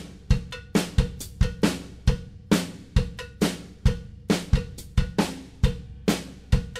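Backing music: a steady, driving drum-kit beat of sharp, evenly repeated hits.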